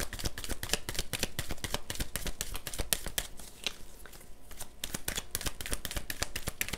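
A tarot deck being shuffled by hand: a fast, continuous run of light card clicks and slaps, easing off briefly a little past halfway before picking up again.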